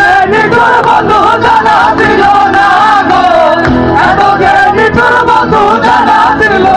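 A group of young men singing a Bengali folk song together into microphones, with a cajon keeping the beat under the voices.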